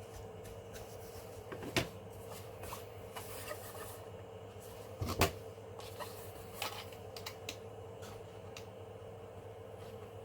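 Small plastic clicks and snaps as leftover print material is stripped off 3D-printed plastic parts, with two louder snaps, one about two seconds in and one about five seconds in, over a steady low hum.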